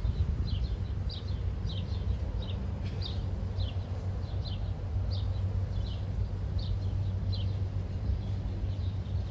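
Low, steady rumble of a four-engine Airbus A340 jet climbing away after takeoff, with a bird chirping over it in short falling chirps about twice a second.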